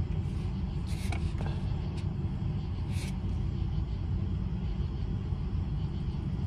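Steady low rumble inside a car's cabin, with two short sniffs about one and three seconds in.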